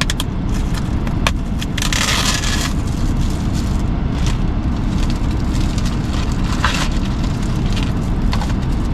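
Plastic meal container and zip-top bag crinkling as a frozen meal is tipped from one into the other, with a burst of rustling about two seconds in and scattered sharp clicks. A steady low rumble runs underneath.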